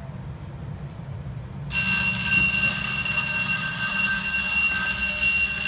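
A fire alarm signal, set off by a two-wire smoke detector being tested on the panel, starts about two seconds in and sounds loudly and continuously as a steady, high, bell-like ringing.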